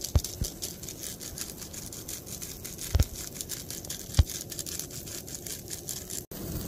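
Hand-held spice grinder being twisted over raw steaks, its burr ratcheting in a quick run of gritty clicks as it grinds. Two dull knocks, about three and four seconds in, come from the grinder or tray being handled.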